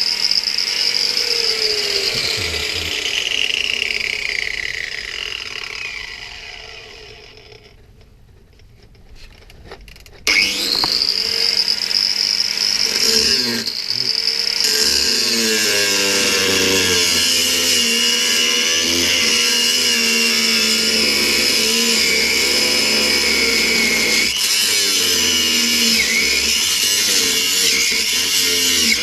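Power tool, most likely an angle grinder, cutting the rusted steel rear chassis: its whine falls away as it runs down, it goes nearly quiet for about two seconds, then it starts again with a rising whine about ten seconds in and runs on steadily under load as it cuts.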